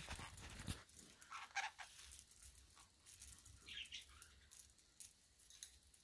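Young green-cheeked conure giving a few faint chirps amid scattered small clicks and rattles as it plays with its toy.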